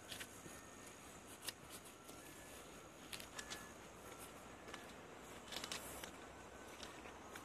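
Faint, irregular clicks and scuffs of footsteps on railway track ballast, over a steady high-pitched tone and a few short, high peeps.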